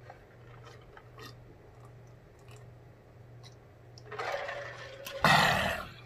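A man gulping water from a large plastic jug, faint swallows and small clicks of the mouth and throat. After about four seconds come breathy exhales, the second one louder, as he comes off the jug.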